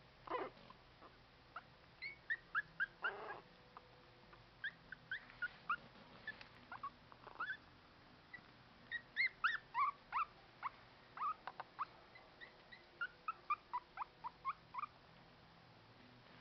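Young puppies whimpering and squeaking: many short, high-pitched cries in quick runs, some sliding up or down in pitch. There is a brief, coarser noisy sound near the start and another about three seconds in.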